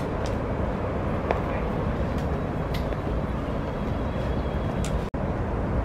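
Footsteps of a hiker going down concrete steps, a few faint scuffs about a second apart, over a steady low rumble.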